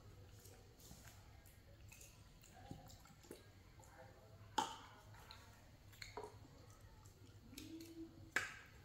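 Quiet handling of plastic drink bottles and baby feeding bottles as a drink is poured from one into another: a few sharp clicks and taps of plastic, the loudest about halfway through and near the end.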